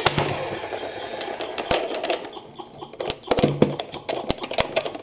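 Hard-plastic battery-powered Thomas the Tank Engine toy being handled and turned over, with sharp plastic clicks and knocks. Before that, a hissing electronic sound from the toy's speaker fades out over the first couple of seconds.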